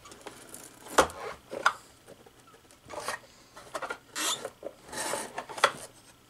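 Hands working the plastic base and brush roll of a Bissell PowerGlide Pet upright vacuum: a series of clicks and knocks of plastic with a few short scraping rubs, with a sharp click about a second in and another near the end.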